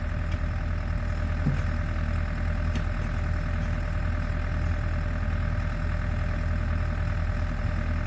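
Champion portable generator's engine running at a steady speed, an even drone with no change in pitch.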